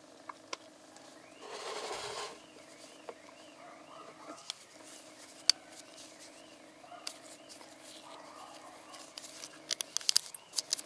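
Gloved fingers handling a small plastic bottle cap: a brief rustle about two seconds in, a single sharp click midway and a quick cluster of plastic clicks and snaps near the end as the cap's tamper ring is flexed, over a steady low hum.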